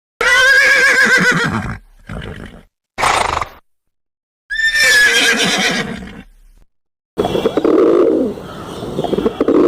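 A horse whinnying: two long, wavering, falling whinnies with a short call between them. About seven seconds in, a different sound starts, pigeons cooing.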